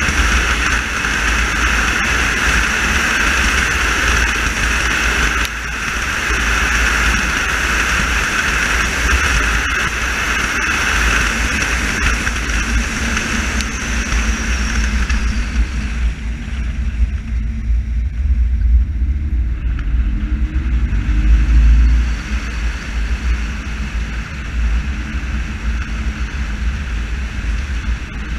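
Car driving on a wet country road: steady tyre and road hiss over a low rumble. The hiss fades for several seconds around the middle as the car eases off, then picks up again.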